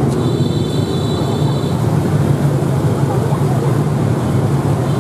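A loud, steady low drone of running machinery. A thin high-pitched whine sounds over it for about a second and a half near the start.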